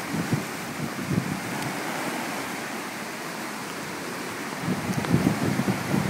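Storm-surge waves washing and breaking onto a flooded street, with gusty wind buffeting the microphone. The wind gusts get heavier near the end.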